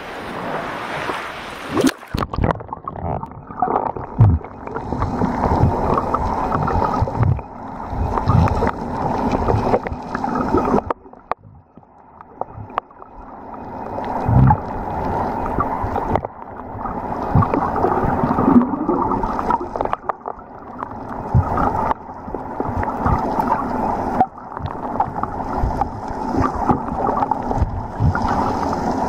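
Small waves and wind at the sea surface, then about two seconds in the microphone goes under water: muffled underwater gurgling and sloshing with irregular low knocks, dipping quieter for a moment near the middle.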